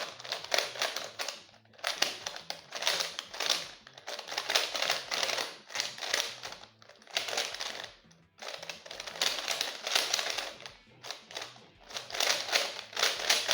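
DianSheng Googol 9 cm magnetic 3x3x3 speedcube being turned fast, its plastic layers clacking in rapid runs of turns broken by short pauses.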